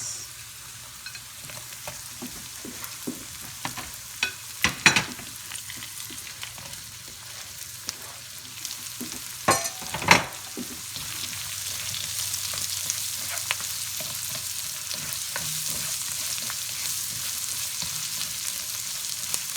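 Chopped carrots, onions and garlic frying in plenty of oil: a steady sizzle that gets somewhat louder about halfway through, with a few sharp scrapes and knocks of the stirring utensil against the pan about five and ten seconds in.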